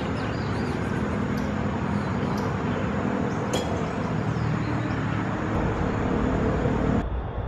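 Steady rumbling background noise with a low, even hum, like a running motor. A few faint high bird chirps come in the first second, and a single sharp click about halfway through. Near the end the sound turns abruptly duller.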